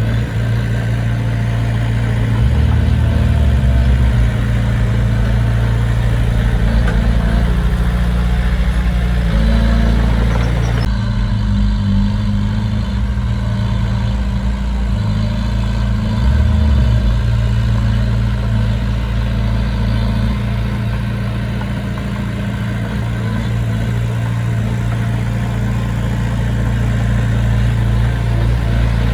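Diesel engine of heavy construction machinery running steadily under load, its low engine note rising and falling slightly, with a change in the sound about eleven seconds in.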